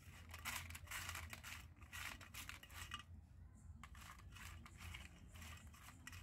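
Hands mixing cut crab pieces in a steel plate: faint, quick scraping and rustling of shells against the metal, in two bouts with a short pause near the middle.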